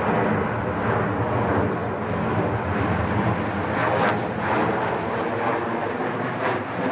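Sukhoi Su-30MKI fighter's twin AL-31FP turbofan engines at takeoff power as it rolls, rotates and lifts off: loud, steady jet noise with a rough crackle.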